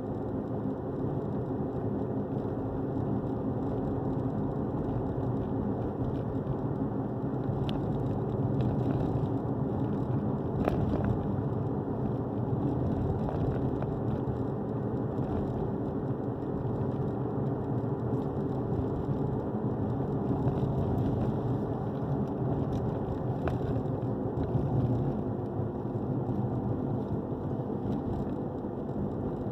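Steady engine and road noise inside a moving car's cabin, with a continuous low hum.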